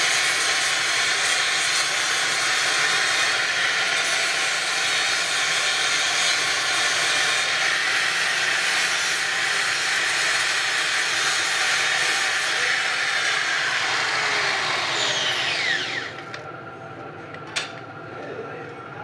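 Handheld angle grinder grinding on metal, a loud steady scream for about sixteen seconds. Then the disc spins down with a falling whine and stops. A single sharp click follows near the end.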